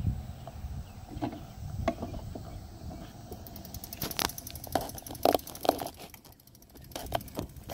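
Phone handling noise: fingers rubbing and knocking against the phone close to its microphone, a scatter of clicks and scrapes that is loudest about four to six seconds in, over a low rumble.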